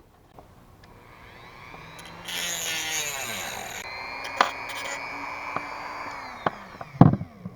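Dremel rotary tool spinning up with a rising whine, grinding harshly as it cuts the edges off the alternator shroud, then running steadily and winding down. A sharp knock comes near the end.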